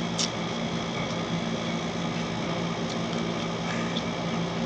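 Window air conditioner running with a steady hum and a low, even drone. A short sharp click about a quarter second in, with a few fainter ticks later.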